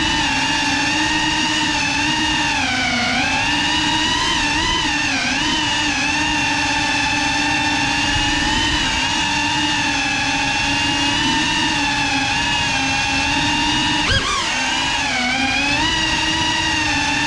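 GEPRC CineLog35 cinewhoop drone's brushless motors and ducted propellers whining, the pitch dipping and rising as the throttle changes. A single sharp knock about fourteen seconds in, followed by a brief dip in pitch.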